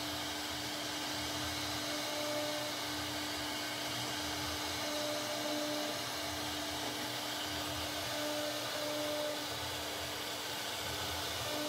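CNC router spindle running with a steady whine as its bit carves a rosette pattern into a wooden door panel, with the hiss of the cutter in the wood.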